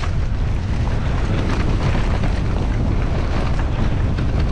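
Wind buffeting the microphone as a mountain bike rolls down a steep dirt trail, with steady tyre and ground noise and scattered short clicks and rattles from the bike.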